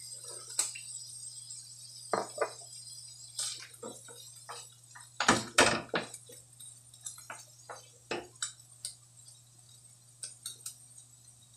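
Scattered clinks and knocks of a wooden spatula stirring mushrooms and carrots in a frying pan, with a pair of sharper, louder knocks about five seconds in, over a steady low hum.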